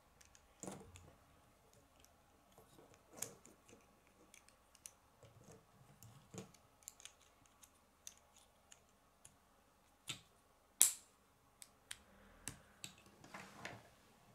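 Plastic K'nex rods and connectors clicking and snapping together as pieces are fitted by hand. The clicks are irregular, with the sharpest one about three-quarters of the way through.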